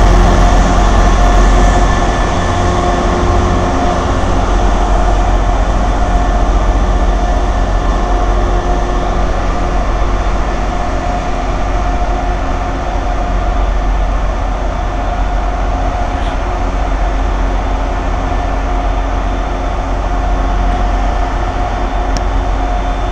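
Irish Rail 201 class diesel locomotive, with its 12-cylinder two-stroke EMD engine, running with a steady low rumble and whine as it moves slowly along the platform. The sound eases a little after the first couple of seconds and then holds.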